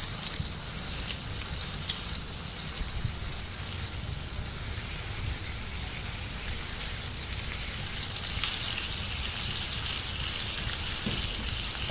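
Kitchen faucet running steadily into a sink, water splashing, with a few faint clicks.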